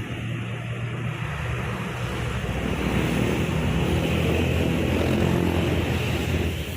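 A bus passing on the road. Its engine drone grows louder from about two and a half seconds in, over a steady rush of wind and tyre noise.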